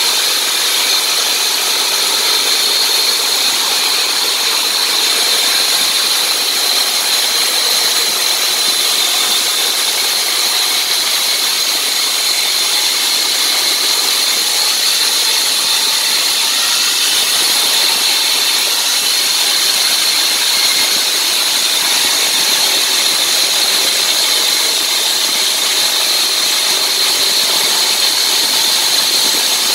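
Hilti DCH 300 electric hand-held diamond cutter with a 305 mm blade, sawing dry into concrete. It makes a steady, high-pitched whine over a grinding hiss, without a break.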